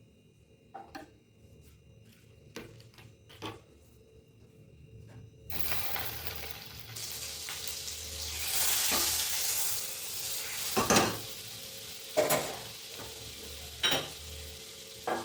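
Food frying in a pan, stirred with a spatula. A few light utensil clicks come first. About five and a half seconds in, a sizzle starts suddenly and keeps going. Four sharp knocks of the spatula against the pan come over the sizzle in the last few seconds.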